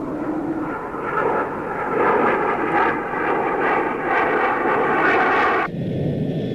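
Aircraft engine droning, its pitch wavering slightly; a little over five seconds in it cuts sharply to a deeper, steadier engine hum.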